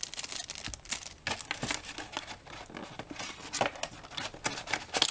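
Packaging being handled, crinkling and rustling in quick irregular crackles as the earbud accessories are taken out of the box.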